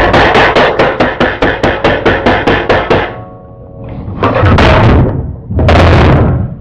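A fast, even run of loud bangs, about five a second for three seconds. Then two loud blasts of noise, each about a second long.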